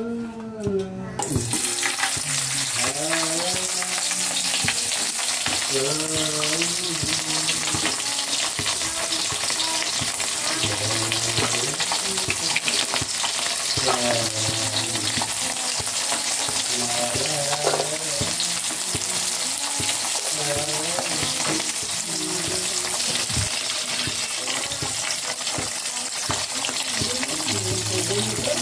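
Dried fish frying in hot oil in a pan: a loud, steady sizzle and crackle that starts suddenly about a second in.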